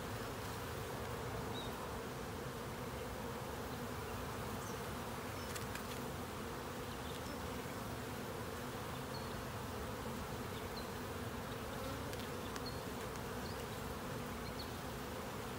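Steady buzzing hum of a honey bee colony in an opened hive, with a few faint clicks.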